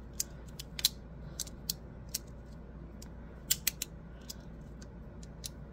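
Magnetic fidget slider clicking as its halves are slid and snap into place: a dozen or so sharp clicks at irregular intervals, with a quick run of three about three and a half seconds in.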